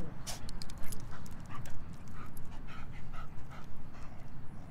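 Korean Jindo dogs panting in quick short breaths, about three or four a second, as they walk on leashes, with a few sharp light clicks in the first second.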